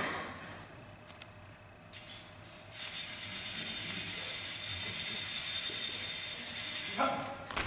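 Two steel smallsword blades held crossed in a bind, scraping against each other in a steady grinding hiss from about three seconds in until near the end.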